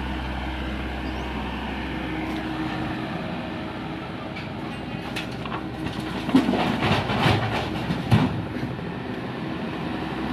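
Hydraulic excavator's diesel engine running steadily during a house demolition, with a burst of clattering and knocks, the heaviest about six and eight seconds in.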